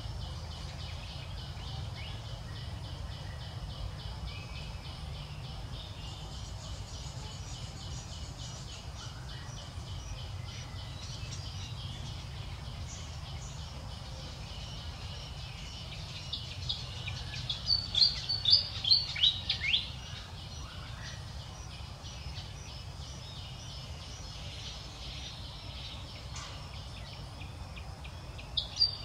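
Outdoor ambience: a steady, finely pulsing high insect buzz runs throughout, over a low rumble. About two-thirds of the way in comes a cluster of loud, short, falling chirping calls, and another brief burst of them at the very end.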